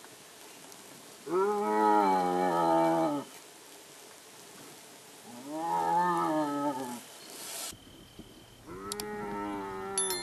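Striped hyena calling: three drawn-out, wavering calls of about two seconds each, the third fainter.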